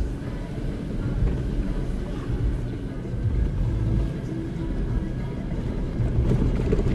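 Jeep Wrangler driving slowly on a dirt trail, heard from inside the cabin: a steady low engine and road rumble.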